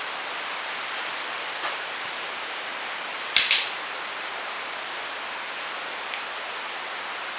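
A sharp double crack, two snaps close together about three and a half seconds in, over a steady hiss, with a few faint ticks.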